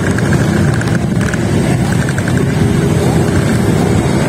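Steady, loud rumble of busy road traffic: motorcycle and car engines on a crowded street, with a faint pulsing higher tone at times.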